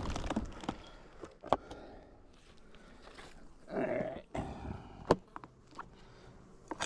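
A few sharp knocks and some rustling as hive parts are handled, with the sharpest knocks about a second and a half in and about five seconds in.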